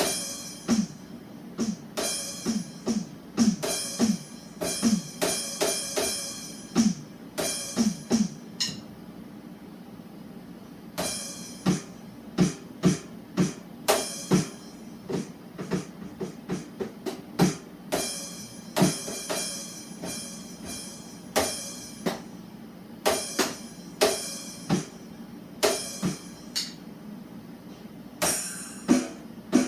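Drum hits played in quick, irregular runs, each with a short low tone that drops a little in pitch and a bright hiss on top. The hits pause for about two seconds partway through.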